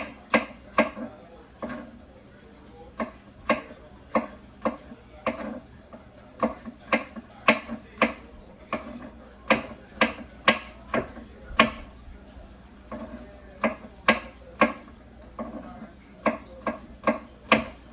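Knife chopping vegetables on a wooden cutting board: a long run of sharp, uneven knocks, about one to two a second.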